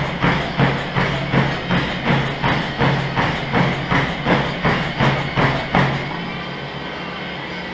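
Running footfalls pounding a treadmill belt, close to three strikes a second, over the steady hum of the treadmill's motor. About six seconds in, the footfalls stop as the runner steps off onto the side rails, and the motor and belt keep running on their own.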